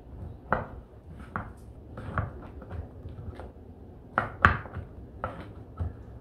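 Kitchen knife chopping mushroom on a wooden cutting board: about ten uneven strikes of the blade on the board, the loudest a little past the middle.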